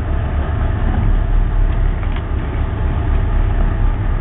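A fishing boat's engine running at idle, a steady low rumble, with wind buffeting the microphone.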